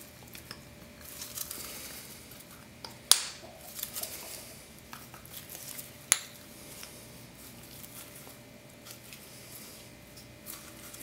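Light metallic clinks and handling noise from a new snowmobile piston and its wrist pin being worked in gloved hands, with two sharp metal clicks about three seconds apart.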